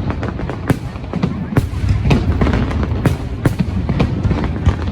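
A fireworks display: a string of sharp bangs at irregular intervals, roughly one or two a second, over a steady low rumble.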